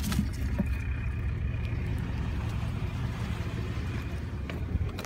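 Pickup truck engine idling with a steady low rumble, and a couple of light knocks near the end.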